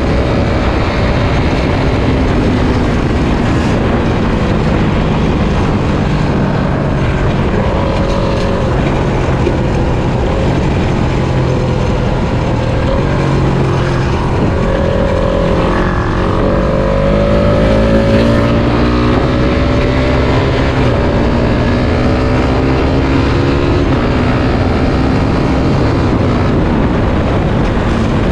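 Suzuki Satria FU 150 fuel-injected single-cylinder engine running while being ridden, its pitch climbing and dropping as the rider revs through the gears, with a steady rush of wind and road noise.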